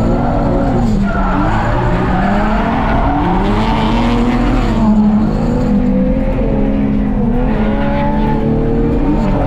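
Drift car's engine revving hard, its pitch climbing and dropping again and again through a drift, with tyre squeal.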